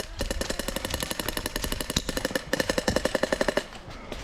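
Airsoft gun firing a long rapid burst of shots, about fifteen a second, which stops after about three and a half seconds.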